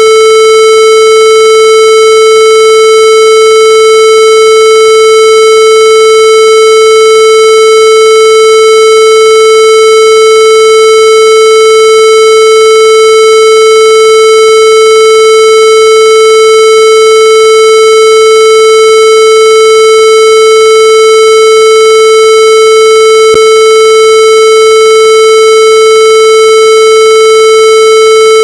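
A loud, steady electronic tone held at one pitch, harsh and buzzy with many overtones, never wavering.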